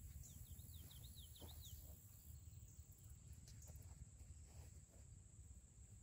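Near silence with a faint low rumble of outdoor air. A small bird sings a quick run of about eight high chirps in the first two seconds.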